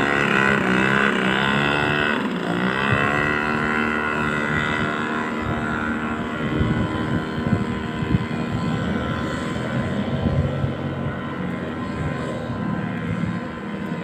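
Outboard motor of a small wooden river boat (speed tempel) running under way. Its pitch dips and comes back up twice in the first few seconds as the throttle is eased and reopened, then it holds steady. From about halfway, low gusty buffeting of strong wind on the microphone joins it.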